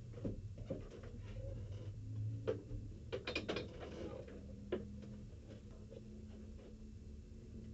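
Scattered mechanical clicks and light rattles in the cockpit of a stopped race car with its engine off, bunched about three seconds in and once more near five seconds, over a low steady hum.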